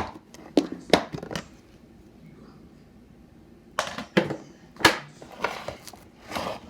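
Slime being squished and poked by hand: a quick run of sharp crackles and pops, a pause of about two seconds, then more squelching swells and pops.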